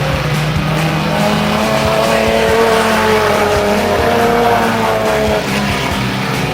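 Stock Omega race cars' engines running hard at high revs, the pitch climbing slightly and holding before dropping away about five and a half seconds in.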